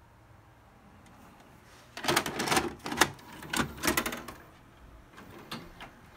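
VHS cassette being pushed into a VCR: about two seconds of plastic clattering and clicking as the loading mechanism takes the tape in, followed by a few lighter clicks.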